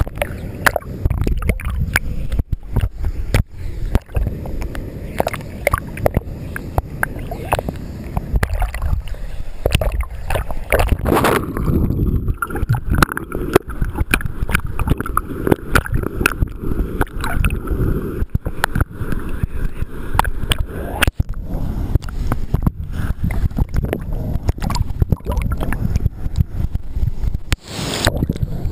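Creek water sloshing and gurgling close to the microphone, with a constant low rumble and many sharp knocks and rubbing noises.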